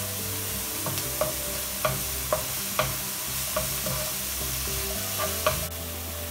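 Carrots, peas and onion sizzling as they sauté in a nonstick pan, with a wooden spatula stirring and clicking against the pan every second or so. The vegetables' water has cooked off.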